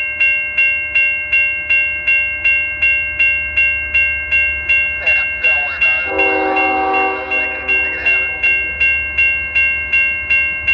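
Railroad grade-crossing bell ringing steadily, about three strokes a second, over the low rumble of a passing freight train. About six seconds in, a locomotive horn sounds for roughly two seconds.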